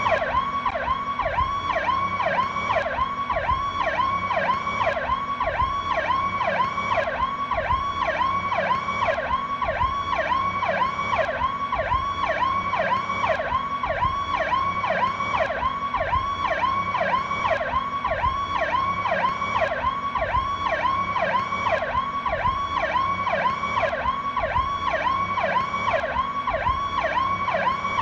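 Federal Signal PowerCall electronic police siren in its standard fast yelp, sweeping up and down about two and a half times a second at an even, unbroken pace.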